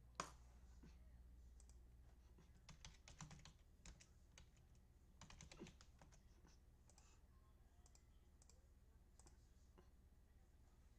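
Faint computer keyboard typing and clicks, coming in short scattered clusters, over a low steady hum.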